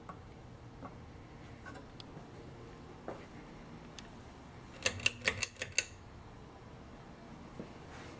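Many ceiling fans running together at low speed: a steady faint whir with scattered light ticks. About five seconds in comes a quick run of about six sharp clicks within a second.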